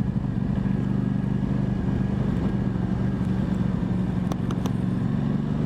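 Aprilia Tuono 660's parallel-twin engine running at a steady pitch while the motorcycle cruises, heard from the rider's helmet with low wind rumble. A few light ticks come in over the last couple of seconds.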